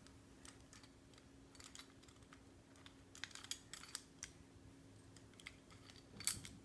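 Faint, scattered metallic clicks and ticks from a disc padlock and the thin picking tools, a shaved bobby pin and a filed-down Allen wrench, being handled after the lock has been picked open. The clicks come in small clusters, with the loudest cluster near the end.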